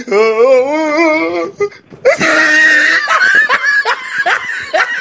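A drawn-out, wavering vocal note for about a second and a half, then a burst of laughter, with quick repeated falling "ha" sounds, through the rest.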